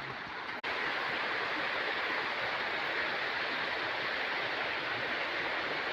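River water flowing, a steady rushing hiss, with a brief break about half a second in.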